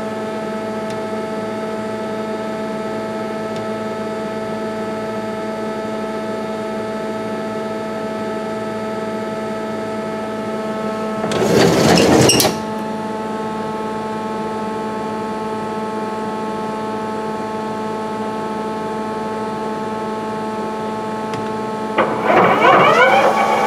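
A CNC lathe idling with a steady multi-tone machine hum. About halfway through, its sliding guard door moves with a brief rushing scrape. Near the end the spindle starts to spin up, bringing in rising whining tones.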